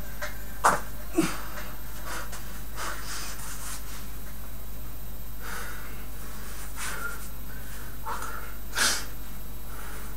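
A man breathing hard after a long set of stand-to-stand back bridges, with about eight sharp, noisy exhalations, the loudest about a second in and again near the end, over a steady low hum.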